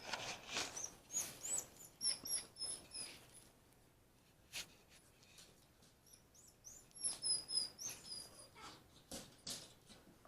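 Small pet monkey giving runs of short, very high-pitched chirps that step down in pitch, in two bouts, with a few light knocks in between.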